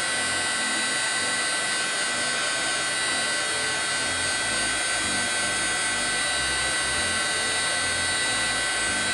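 Embossing heat gun running steadily, a fan-motor whine with a high steady tone, heating embossing glaze to melt it.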